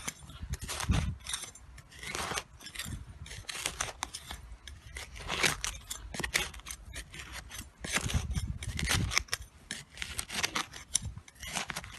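A stainless steel garden trowel scraping and stabbing into hard, dry soil in repeated, irregular short strokes, with a few dull low bumps among them.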